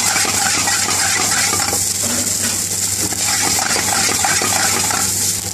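Long metal spoon scraping and clinking against a black frying pan as egg fried rice is tossed and stirred, over a sizzle from the hot pan and a steady low hum.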